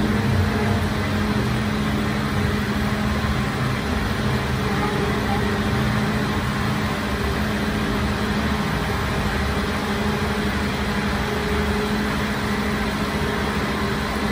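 Bakery machinery running: a steady motor hum with a constant low droning tone.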